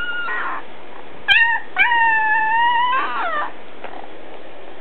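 A week-old Alaskan Malamute puppy howling in thin, high-pitched calls, a newborn pup's first tries at a howl. The end of one call fades early on, a short call comes about a second in, and then a long held howl of about a second and a half drops in pitch at the end.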